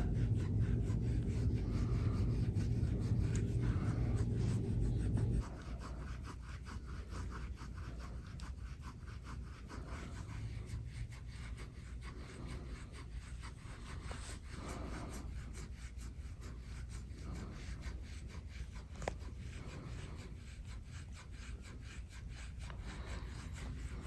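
Soft, repeated scraping strokes of a green gua sha-style scraping tool drawn over oiled skin on a back. A steady low hum sits under the first five seconds and cuts off suddenly.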